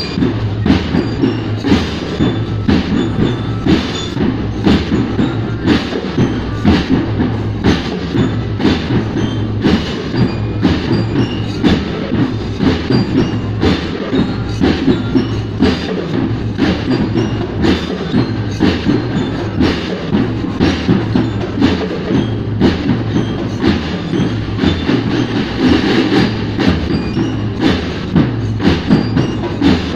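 School drum band of marching snare and bass drums playing together, beating out a steady march rhythm of about two strong beats a second.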